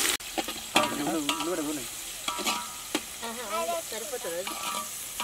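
Sliced onions, garlic and green chillies sizzling in hot oil in an aluminium pot. A metal slotted spoon stirs them, scraping and clicking against the pot.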